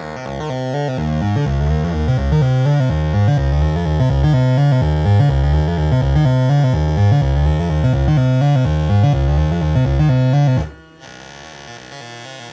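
ARP Avatar analog synthesizer playing a repeating sequenced pattern of short, bass-heavy notes, with VCO1 apparently not working. The notes cut off abruptly near the end, leaving a steady low mains hum.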